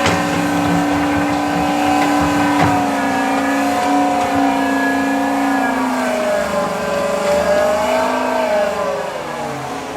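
Diesel engine of a heavy construction machine running under load, its pitch steady at first, then dropping about six seconds in and swinging up and down as the load changes.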